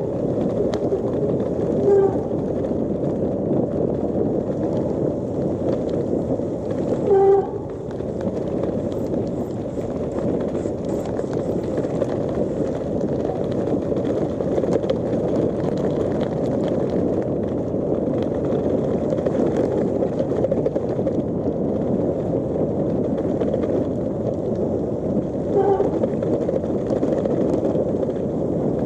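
Steady wind noise on a handlebar-mounted action camera's microphone, mixed with the tyre noise of a gravel bike rolling fast on asphalt. Three short pitched sounds cut through, about two seconds in, about seven seconds in (the loudest) and near the end.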